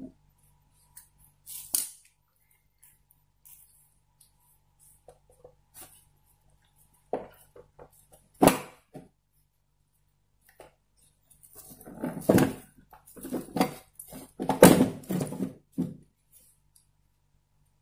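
Plastic back cover of an LED TV being handled and removed: scattered clicks and knocks, one sharp knock about eight seconds in, then a run of louder knocks and rattles for a few seconds near the end as the cover section comes off.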